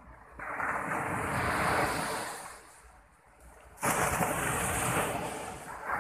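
Sea surf breaking and washing up the sand in two surges: one swells about half a second in and dies away after a couple of seconds, and a second crashes in suddenly near the four-second mark and keeps rushing.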